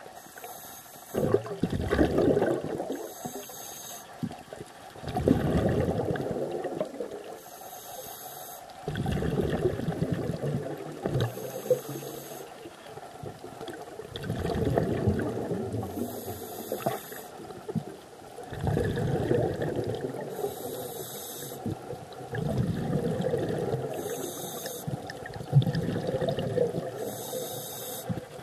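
Scuba diver breathing through a regulator underwater: a short hiss on each inhale, then a longer burble of exhaled bubbles, repeating about every four seconds.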